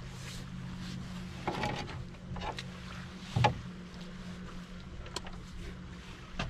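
Steady low hum of a bow-mounted electric trolling motor holding a small fishing boat in place, with a few knocks on the boat, the loudest about three and a half seconds in.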